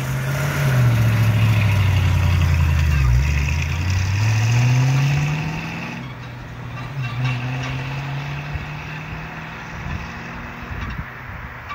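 1965 Ford Mustang's 289 V8 pulling away from a standstill. The engine note dips, climbs, breaks about six seconds in, then climbs again, growing fainter as the car draws away.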